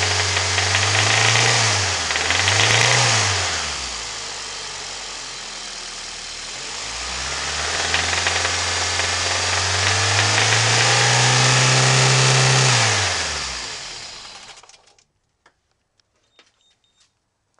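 A Honda Civic engine with a failed rod bearing is revved twice quickly, settles to idle, then revs up and holds for several seconds before dropping away. It goes quiet near the end. It carries the rod knock of the thrown bearing.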